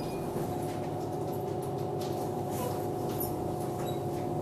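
2007 New Flyer DE40LF diesel-electric hybrid bus, with a Cummins ISL diesel and Allison EP40 hybrid drive, running with a steady two-note electric drive whine over a low diesel rumble, with scattered light rattles and ticks.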